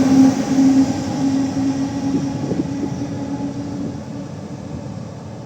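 Taiwan Railways E1000 push-pull express train running out of the station: a steady low hum from the locomotive's electric traction and blower equipment over a rolling rumble, fading as the train moves away.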